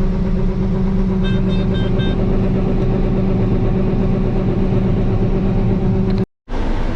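Combine engine running steadily under harvest load, a constant hum, with a set of four short electronic beeps from the cab monitor about a second in. The sound cuts out completely for a moment near the end.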